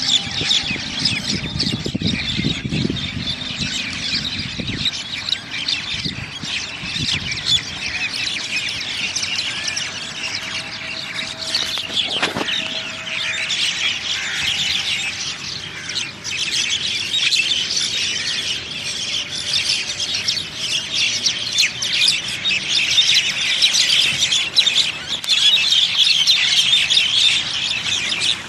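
A flock of birds calling all at once: a dense, unbroken chatter of high-pitched squawks and chirps that grows busier toward the end, with some low rumbling in the first few seconds.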